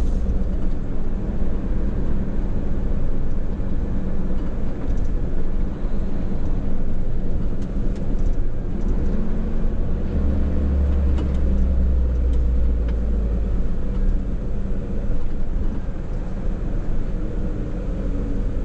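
Heavy Hino truck's diesel engine and tyre noise heard from inside the cab while driving, a steady low rumble that grows deeper for a few seconds about ten seconds in.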